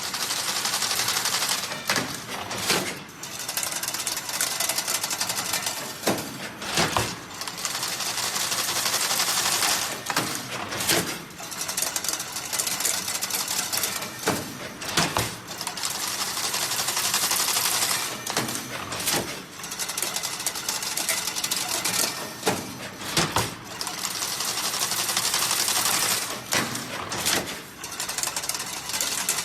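Automatic chain link fence machine running through its weaving cycle: a high, hissing whir that comes back about every eight seconds, with sharp clacks and knocks in between.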